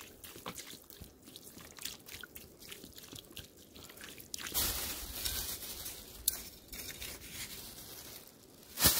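Water poured from a plastic bottle onto wet campfire ash in sand: small drips and ticks at first, then a steadier splashing pour from about halfway. A short, loud scrape of a hand trowel digging into the ash near the end.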